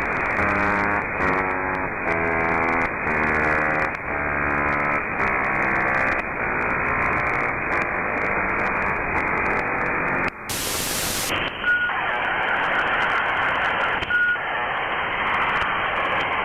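Modem-style data connection sounds over a telephone-band hiss: a string of buzzy tones changing about twice a second, then a short burst of static and a steady data hiss broken by two brief beeps.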